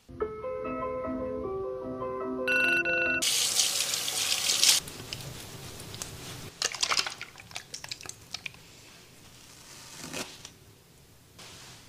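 A short tinkling melody of separate notes for about three seconds, then a tap runs with a loud rush, followed by quieter running water and splashing as hands rinse a green face mask off the face.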